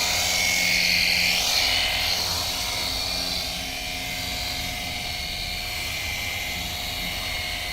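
Cordless pressure washer running: the pump motor drones steadily while the water jet hisses against the surface being cleaned, the spray loudest for the first two seconds or so.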